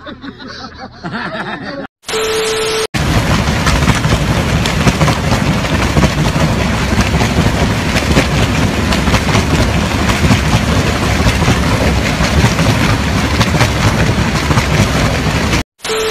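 A TV-static glitch sound effect, hiss with a steady beep, about two seconds in, followed by a loud, steady rushing roar that lasts about thirteen seconds. A second static-and-beep glitch comes near the end.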